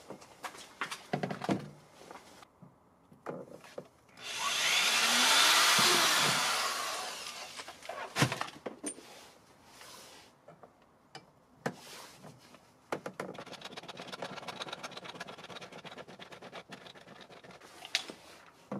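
Handling of a metal fold-down MOLLE panel against the rear door's plastic trim. There are clicks and knocks, then a loud scraping rub lasting about three seconds a few seconds in, then a sharp knock. A quieter steady rasping with scattered clicks follows in the second half.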